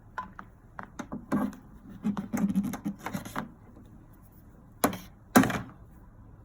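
Clicks and knocks of a 110 V power plug and cord being handled and plugged into a laser machine, ending with two loud sharp knocks about half a second apart.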